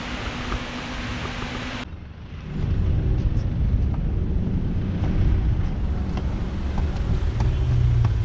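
A steady hiss with a low hum breaks off suddenly about two seconds in. A louder low outdoor rumble follows, with faint footsteps on stone steps.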